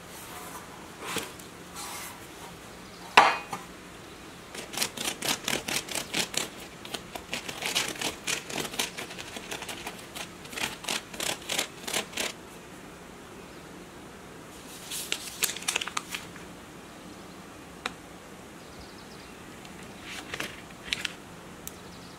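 A sharp knock of a metal loaf pan on a metal baking tray about three seconds in, then runs of quick, soft strokes of a silicone pastry brush over the crusts of the freshly baked bread, with a few more short clusters near the end.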